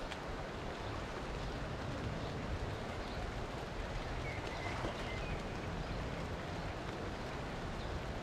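Steady rain falling on a river surface and the riverside vegetation, an even hiss with a low rumble underneath.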